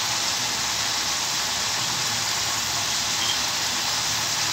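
Raw beef pieces sizzling steadily in hot oil and spice paste in a cooking pot, just after going into the masala.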